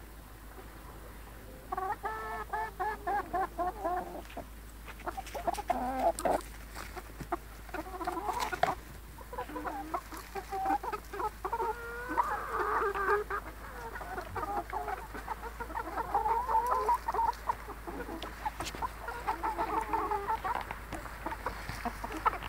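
Free-range brown hens clucking as they feed: many short, pitched clucks overlapping, starting about two seconds in and going on steadily.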